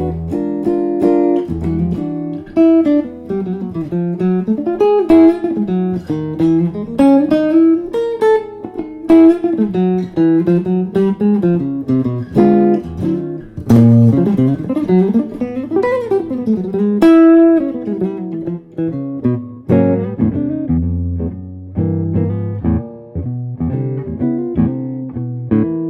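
A 15.5-inch maple-bodied archtop jazz guitar played solo, mixing plucked chords with single-note melodic runs, including a quick run up and back down about midway.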